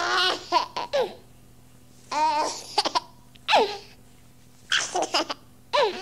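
A baby giggling and laughing in about five short bursts, with gliding, squealing pitch and quiet gaps between them, over a faint steady low hum.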